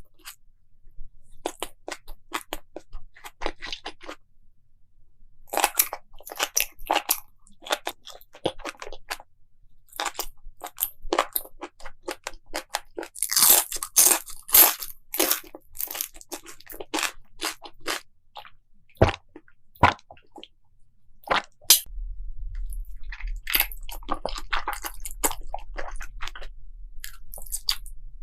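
Close-miked eating: a person biting and chewing crunchy food, with quick runs of sharp crunches and brief pauses between bites. A low steady hum comes in about three quarters of the way through.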